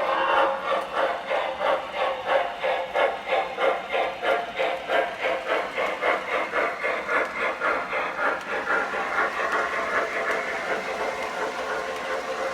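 Model 4-6-6-4 Challenger steam locomotive's chuff sound, a steady rhythmic chuffing of about three beats a second with a hiss, growing fainter over the last few seconds as the train runs away.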